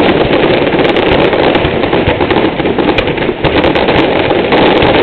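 Fireworks going off in a loud, continuous barrage of rapid bangs and crackles.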